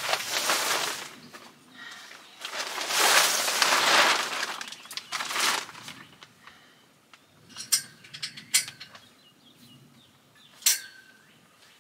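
Portable carport's fabric cover rustling and flapping in two long bursts as it is pulled over the frame. Then come three sharp clinks, the last one ringing briefly.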